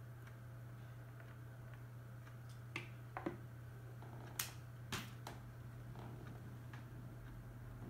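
A few sharp clicks and light taps of small objects being handled and set down on a tabletop, in two small clusters about three seconds in and around four and a half to five seconds, over a steady low hum.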